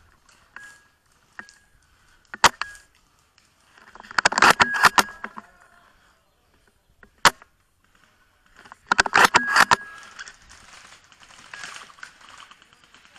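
Spring-powered Tokyo Marui VSR-10 bolt-action airsoft sniper rifle: two single sharp shots about five seconds apart, each followed by a quick run of metallic clicks with a brief ring as the bolt is cycled.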